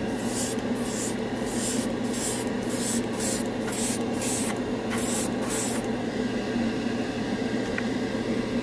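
Airbrush spraying thinned lacquer paint onto a test card in a dozen or so short hissing bursts, which stop about six seconds in. A spray booth exhaust fan hums steadily underneath.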